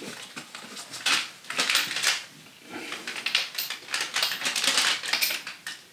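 A PEX crimping tool and fittings being handled and set up for a crimp: irregular clicks, rattles and rustling.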